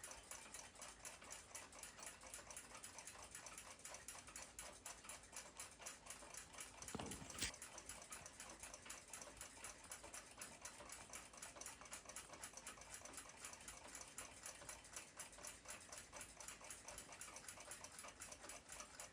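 Faint, quick, even ticking of a mechanical clock, with a single louder knock about seven seconds in.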